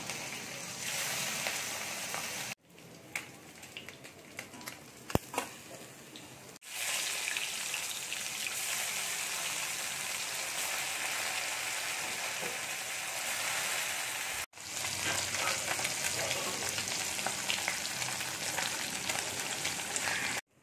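Phasa fish frying in hot oil in an aluminium wok, a steady sizzle. The sizzle breaks off abruptly several times, and a quieter stretch a few seconds in holds a few sharp clicks.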